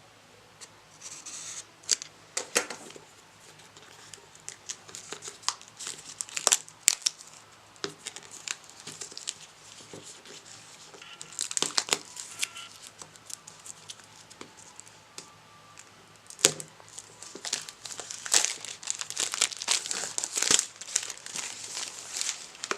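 Packaging around a smartphone box being torn open and crumpled by hand: irregular crinkling and sharp crackles in clusters, thickest near the end.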